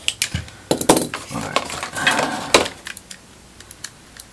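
Light metallic clicks and clatter of tiny screws and small repair tools being handled on a work surface: a busy run of rattling ticks for about the first two and a half seconds, then a few scattered ticks near the end.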